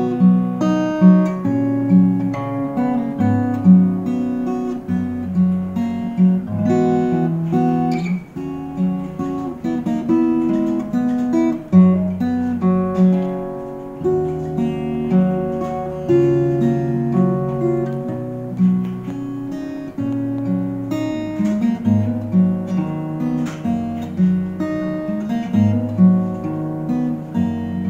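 Custom-made Stanford acoustic guitar played fingerstyle: a song intro, with a plucked bass line under a melody of ringing single notes and chords, played continuously.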